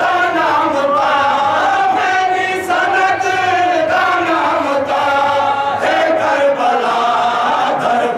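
Men's voices chanting a noha, a Shia mourning lament, loudly and without a break, with the voices of a large crowd of mourners joining in.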